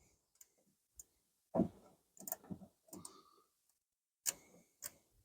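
A handful of faint, irregular clicks from a socket ratchet being worked by hand on a car door latch bolt.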